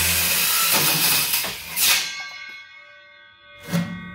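Cordless Ridgid circular saw, blade set at a 30-degree bevel, cutting through aluminium diamond plate with a loud, harsh scream that stops about two seconds in. A ringing of several steady tones then hangs on and fades slowly, and a single knock comes near the end.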